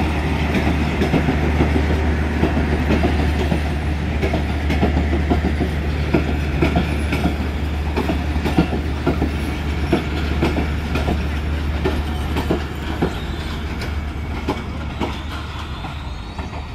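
Indonesian-built INKA passenger coaches of an express train rolling past, their wheels clattering over the rail joints in an irregular stream of clicks over a steady low rumble. The sound eases slightly near the end as the train draws away.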